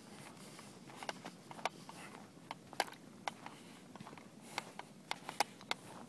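Footsteps crunching in packed snow, a crisp irregular crackle of steps with no steady rhythm.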